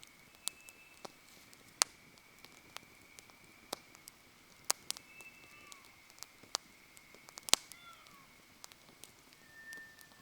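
Wood campfire crackling, with irregular sharp pops of burning wood, the loudest about two seconds in and again near the end. A faint steady high whistle runs under it and stops shortly before the end, with a few brief chirp-like tones.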